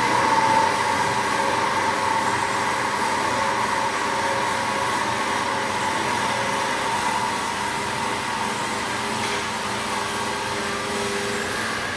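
Horizontal metal-cutting bandsaws running through metal stock: a steady whine with several held tones over a hiss.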